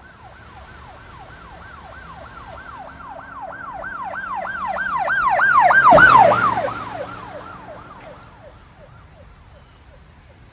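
Siren sound effect: rapid repeated pitch sweeps, about three a second, that swell to a loud peak with a brief whoosh about six seconds in, then fade away like a passing emergency vehicle.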